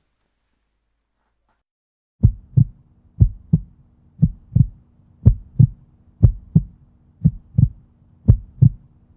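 End-card soundtrack: after about two seconds of near silence, pairs of low, sharp thumps start and repeat steadily, about one pair a second, over a faint steady low hum.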